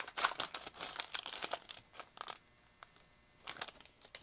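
Foil wrapper of a baseball card pack crinkling and tearing as it is ripped open, dense crackling for about two seconds, then a brief rustle near the end.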